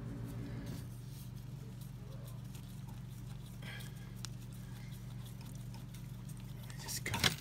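Small metal taps and clicks from a tool and parts being handled at an oil burner's fuel pump, with a louder short clatter near the end, over a steady low hum.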